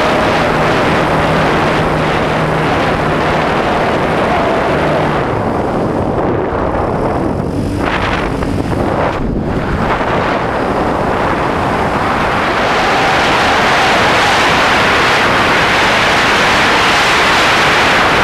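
Wind rushing over a wingtip-mounted camera on a radio-controlled plane in flight, with the plane's supercharged YS 115 four-stroke glow engine running underneath as a faint steady note. The rush thins out about six seconds in and builds again from about twelve seconds.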